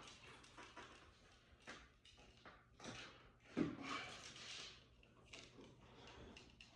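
Faint clicks, clunks and rustles of parts being handled and pulled out, with one sharper knock about three and a half seconds in.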